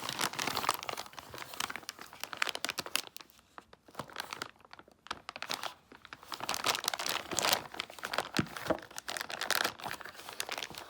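Packaging crinkling and rustling as it is handled and unwrapped by hand, with a quieter pause in the middle.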